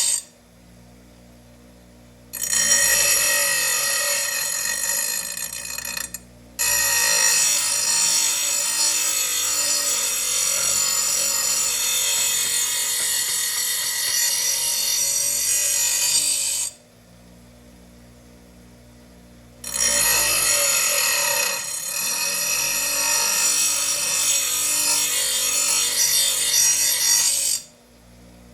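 A lawn mower blade being sharpened with a power grinder: long, harsh grinding passes of several seconds that break off abruptly, with short pauses a couple of seconds in, about six seconds in, a longer pause in the middle, and another near the end.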